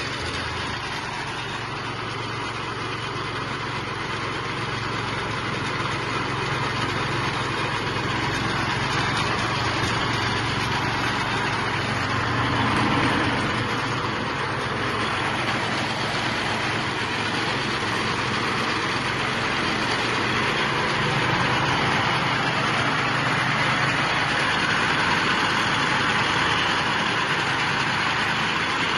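Cashew apple separating machine running steadily, driven by a 6 HP engine that runs on kerosene or petrol, giving a continuous engine drone.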